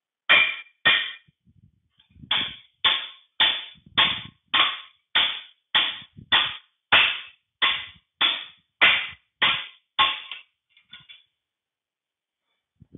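Hammer blows on a long steel drift rod, about sixteen sharp ringing metallic strikes a little under two a second, with a short pause after the first two and a couple of lighter taps near the end. They drive the axle shaft of a 1953 Allis-Chalmers B final drive out through its bearing, with the shaft seal giving the resistance.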